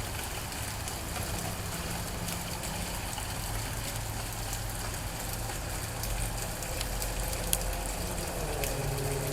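Steady rain with many individual drops ticking, over a steady low hum; one sharper tap stands out about three-quarters of the way through.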